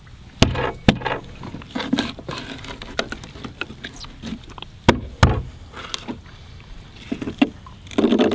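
Fillet knife cutting the head off a flounder on a fish-cleaning table: crunching and wet scraping through the bone, with a few sharp knocks, about half a second in, near one second, and twice around five seconds.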